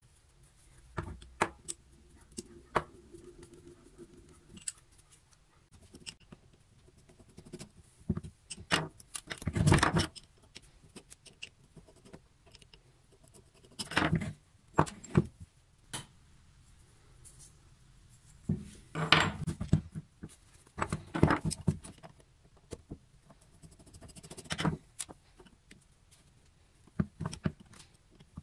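Small rusty table vice being taken apart by hand: scattered metal clicks, clinks and scrapes as the vice body is handled and a screwdriver works the jaw-plate screws, with several louder clattering bursts.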